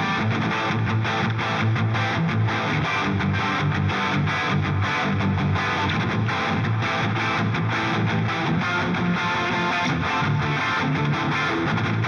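2024 Gibson SG Supreme electric guitar on its bridge humbucker, played through a distorted amp: a fast, evenly picked rock riff with heavy low notes.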